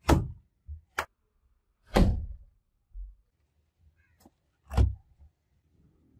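A series of heavy knocks or thuds: four loud ones, the first three about a second apart and the last near the end, with a few fainter knocks between.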